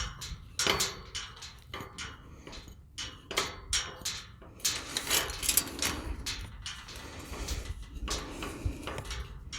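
Irregular metallic clicks and clanks as the parts of a slide bolt gate latch are handled and fitted onto a tubular metal gate.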